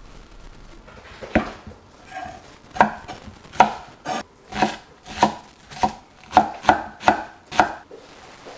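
Chef's knife chopping on a wooden cutting board: about a dozen sharp knocks at an uneven pace, starting about a second and a half in.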